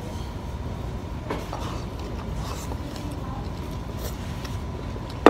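Steady low rumble of restaurant room noise, with a few light clicks of chopsticks against a ceramic rice bowl and one sharp click at the very end, the loudest sound.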